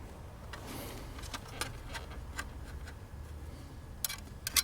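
Light, irregular clicks and ticks of small metal parts (mounting brackets and screws) being handled and fitted, with a quick cluster of clicks near the end.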